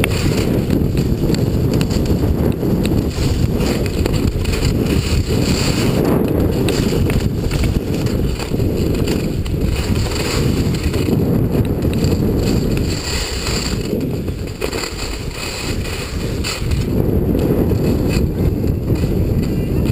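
Wind buffeting the camera's microphone as a skier runs downhill at speed, a loud low rushing with the skis hissing over the snow beneath it. It eases for a few seconds about two-thirds of the way through, then comes back up.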